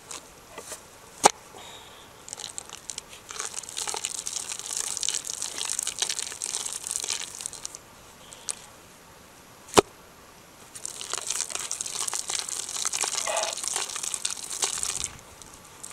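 Dry crinkling and rustling in two spells of about four seconds each, with a sharp click about a second in and another just before the second spell.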